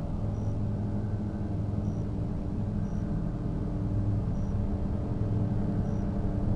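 Electroacoustic drone music: a dense, rumbling low drone built of several held low tones, with faint short high beeps recurring about once a second.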